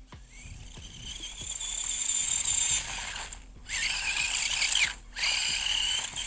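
Electric motor and gear drive of a 1/18-scale RC buggy whining at a high pitch under throttle, rising in pitch as it speeds up. The whine drops out briefly twice, about three and a half and five seconds in, then picks back up.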